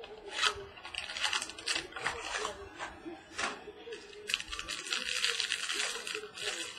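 Crinkling and crackling of a trading-card pack wrapper and plastic card holders being handled, with quick clicks at first and a dense crackle through the middle seconds.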